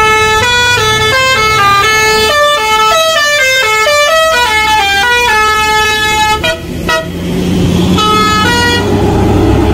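Telolet horn on a tour bus playing a quick tune, a new note about every third of a second for about six seconds. A few more notes follow after a short break. The bus engine runs underneath near the end.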